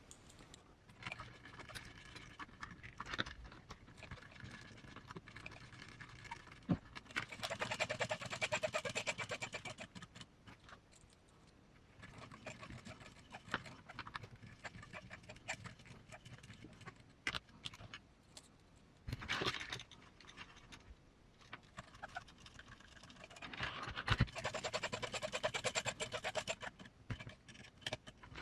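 Small M3 screws being driven in with a small electric screwdriver, in several buzzing runs of a few seconds each, with light clicks and taps of small parts being handled between them.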